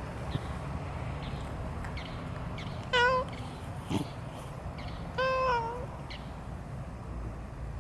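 A cat meowing twice: a short meow about three seconds in, then a longer meow about two seconds later that falls in pitch at its end, over a low steady rumble.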